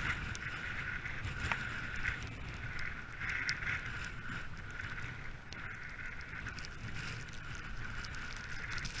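Dog sled pulled by two dogs, sliding over snow: a steady hiss from the runners over a low rumble, with scattered small ticks.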